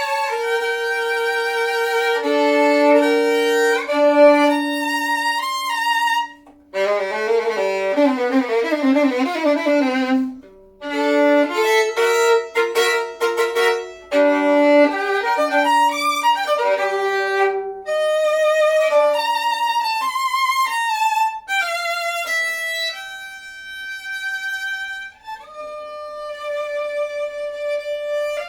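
Solo violin played with the bow: a melody of held notes, broken by a quick run of fast notes reaching down to the low strings a little over a quarter of the way in, with short breaks before and after the run.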